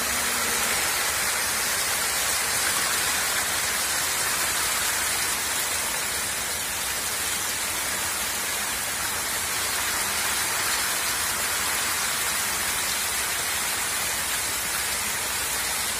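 Steady, rain-like splashing of water from a dense crowd of hybrid magur catfish thrashing in shallow water at feeding, with a spray of water pattering down over them.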